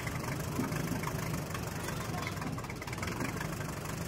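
Vintage farm tractor engine running at a slow idle with a steady, even firing beat.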